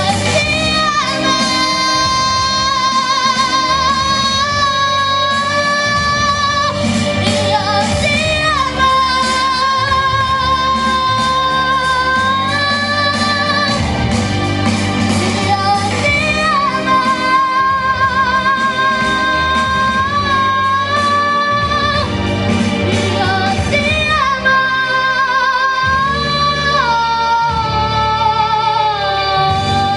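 A young girl singing a song into a microphone over a recorded musical backing track, holding long notes with vibrato.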